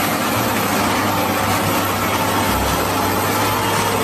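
Heavy tractor engine running steadily at idle, a dense even rumble.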